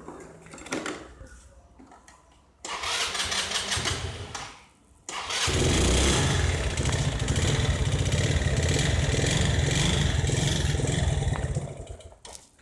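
Scooter engine with its stock exhaust being started: a first try of about two seconds, a short pause, then it starts about five seconds in and runs steadily for about six seconds before dying away near the end.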